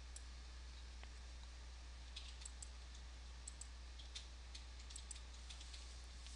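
Faint, scattered clicks of a computer mouse, a dozen or so irregularly spaced, over a steady low hum.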